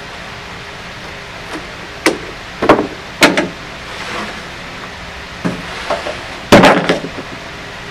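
Long plywood boards being handled and set down on plywood sheets: a series of about six wooden knocks and clatters, the loudest about six and a half seconds in.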